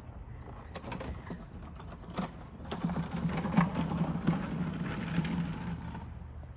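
A car driving past on the road: engine and tyre noise grows louder from about a second in, peaks in the middle, and fades near the end.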